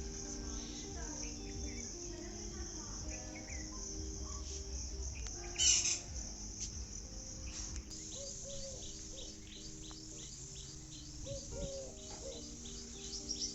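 Birds chirping and calling over a steady high-pitched drone of crickets or other insects. About halfway there is one loud, brief call. In the last third, a bird repeats short chirps several times a second.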